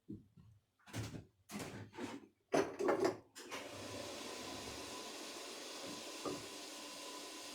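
A few short knocks and rubs of objects being handled on a workbench, then a steady hiss starts about halfway through and runs on evenly.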